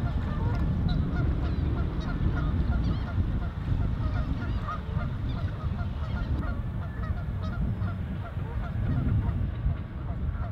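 A flock of geese honking, many short calls overlapping without pause, over a steady low rumble.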